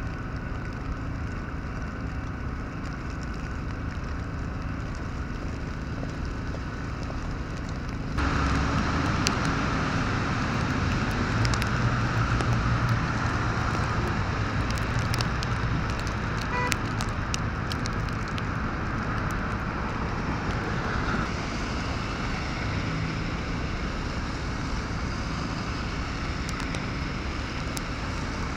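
Road traffic noise: a steady hum of vehicles. About eight seconds in it turns suddenly louder, with a low engine drone that eases off after about twenty seconds.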